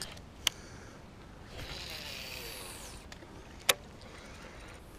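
Fishing rod and reel being handled: a sharp click about half a second in, a rushing swish around the middle, and another sharp click late on.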